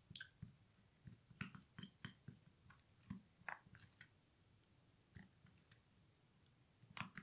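Plastic spoon stirring a thick, wet paste in a small glass bowl: faint, irregular soft clicks and taps, some in quick clusters, the loudest one near the end.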